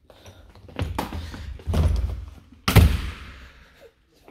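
A door being opened and shut: a few softer knocks and rattles, then one loud thud a little under three seconds in that echoes briefly off the hard walls and floor.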